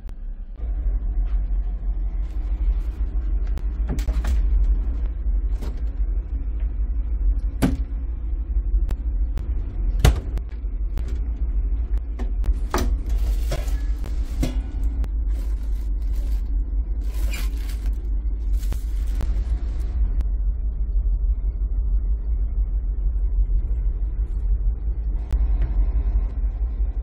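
Steady low rumble of the Ocean Vista Jeju car ferry's engines, heard inside a cabin. Over it come several sharp knocks and short rustles as things in the cabin are handled, among them a stainless steel waste bin.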